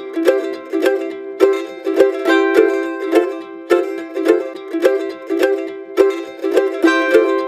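Background music: an instrumental of plucked string notes in a steady, quick rhythm.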